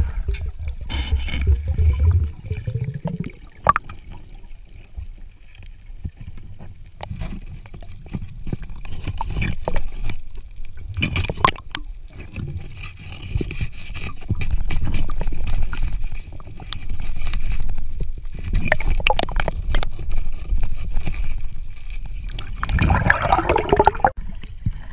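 Underwater sound as picked up by a camera: water sloshing and gurgling with scattered clicks and knocks, and a louder rush of noise near the end.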